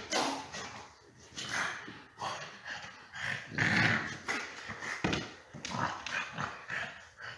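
French bulldog making a string of short vocal sounds, one every second or so, while playing with a toy.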